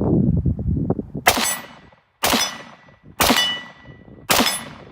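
VZ 58 rifle's action being charged, then four sharp shots about a second apart, each followed by a short metallic ring.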